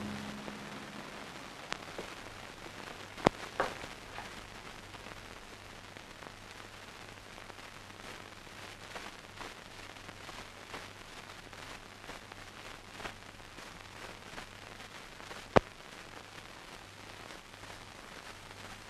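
Hiss and crackle of a worn old film soundtrack, with a steady low hum under it. A few sharp clicks stand out, the loudest about three seconds and fifteen and a half seconds in.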